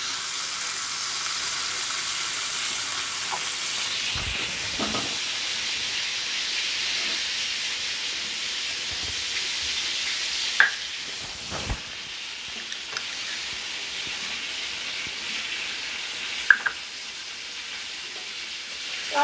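Chilli-marinated fish steaks frying in hot oil on a flat iron pan, a steady sizzling hiss that eases a little about halfway through, with two sharp clicks about six seconds apart.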